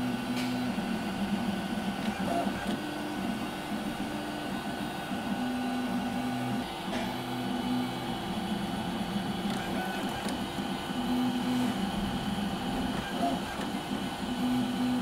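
A Robo3D 3D printer running a print: its stepper motors whine in short steady tones that switch on and off as the print head and bed move, over a constant hum.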